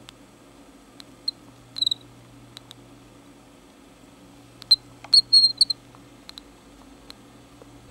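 A swift's breathing with short, sharp clicks that come singly at uneven intervals and in a quick cluster about five seconds in. The clicking with its breaths is the sign of a problem in the bird's airways.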